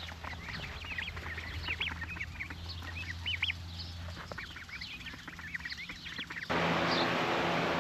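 Young poultry cheeping: many short, high chirps from half-grown birds. About six and a half seconds in, a louder steady hissing hum cuts in.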